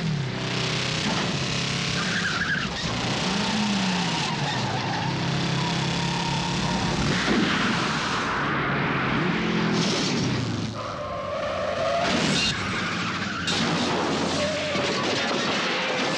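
Chase sound effects: vehicle engines revving, their pitch rising and falling several times as they speed past, with tyres skidding.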